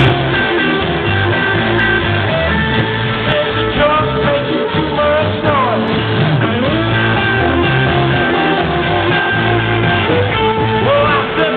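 Live rock band playing, with electric guitars to the fore, a few notes sliding in pitch around the middle.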